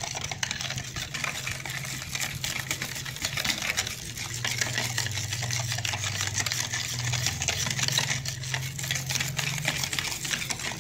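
Wire whisk beating a thick cream mixture in a plastic bowl: a fast, steady clicking and scraping of the wires against the bowl, over a steady low hum.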